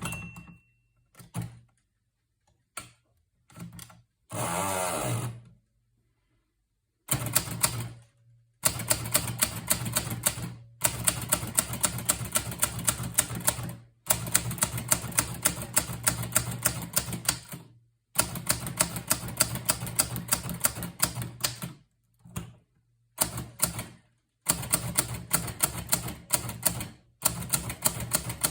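Hermes 3000 portable manual typewriter being typed on. At first there are a few scattered clicks and a short rasping mechanism noise; from about seven seconds in come fast runs of keystrokes, each lasting a few seconds, with short pauses between them.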